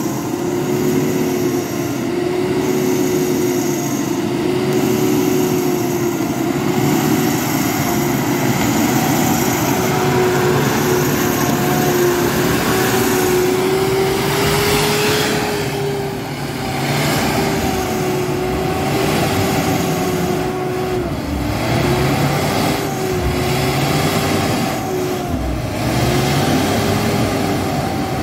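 Pickup truck engine running hard in deep mud, a steady whine that wavers up and down in pitch, over a rough noisy wash.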